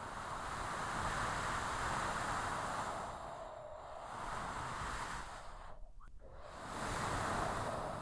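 Strong desert storm wind gusting as a steady hiss that swells and eases. It drops away briefly about six seconds in, then swells again.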